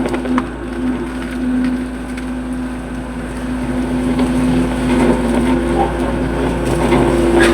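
Hitachi hydraulic excavator running under load with a steady engine and hydraulic drone, growing a little louder about halfway through, with a few sharp knocks and crunches from the bucket working the soil of a ditch.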